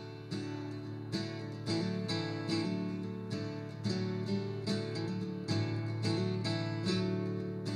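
Background instrumental music: steadily picked acoustic guitar, a new note or chord roughly every half second.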